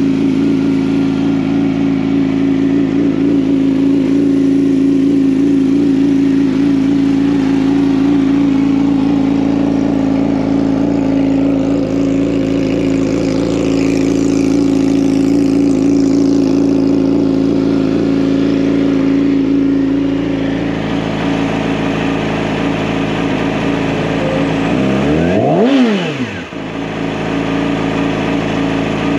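2015 Yamaha YZF-R6's 600 cc inline-four engine idling steadily. Near the end the throttle is blipped once, the revs rising sharply and dropping back, and a second rev begins just as it ends.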